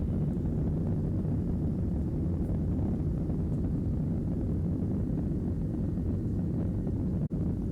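Airliner taking off: a steady low rumble of jet engines and rushing air, dropping out for an instant near the end.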